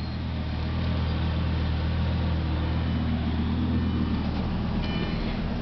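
Lamborghini Gallardo's V10 engine idling steadily.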